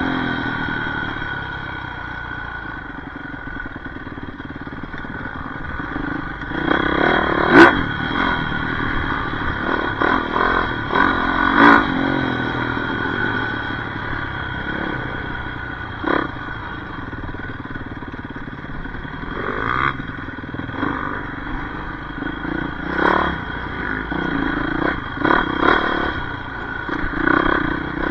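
Yamaha YZ450F single-cylinder four-stroke dirt bike engine running and revving up and down while riding off-road, with sharp clattering knocks from time to time.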